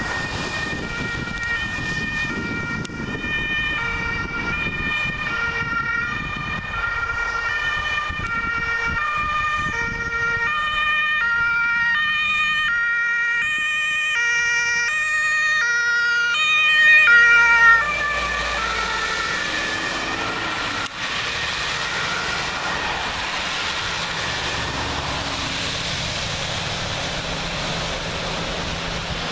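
Two-tone sirens of several fire engines, each alternating between a high and a low note, overlapping and growing louder as they approach. They stop abruptly about eighteen seconds in, and a steady rushing noise of traffic on the wet road follows.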